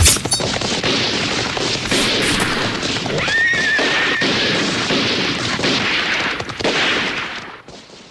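Battle sound effects: a sharp shot or blast at the start, then a dense din of noise with a horse whinnying about three seconds in, fading out near the end.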